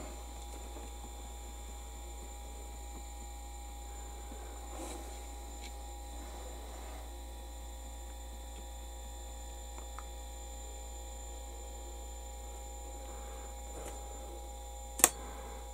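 Steady electrical mains hum with faint steady whining tones above it, and one sharp click near the end.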